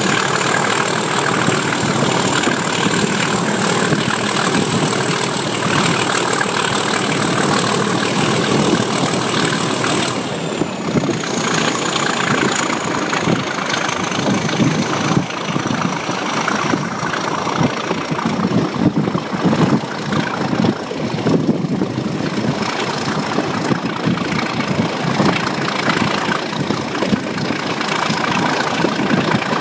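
Class 37 diesel locomotive's English Electric V12 engine working hard under power, heard from the carriage behind it over the running noise of the moving train. A high turbocharger whistle rides on top and slides lower in pitch partway through.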